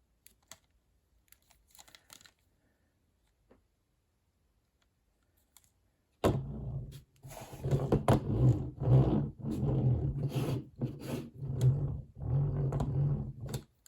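Die-cast toy monster truck handled, its plastic wheels spun, with an uneven rattling, rumbling noise from about six seconds in; before that only a few faint clicks.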